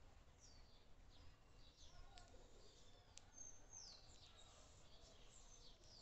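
Faint high bird chirps and short whistles, one sliding downward in pitch about halfway through, with a couple of sharp clicks.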